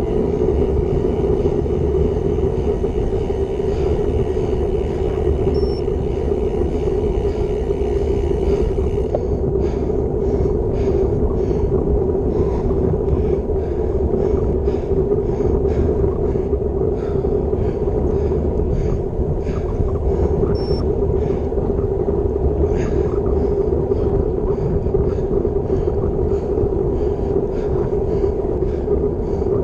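Steady rumble of wind and road noise on a bike-mounted action camera during a road bicycle ride at about 25 km/h.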